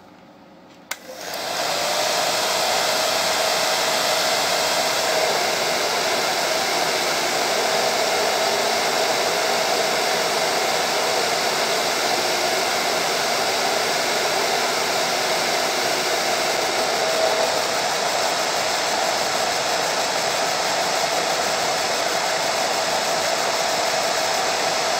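Handheld hair dryer switched on with a click about a second in, spinning up and then running steadily, blowing hot air with a steady hum under the rush of air. It stops right at the end.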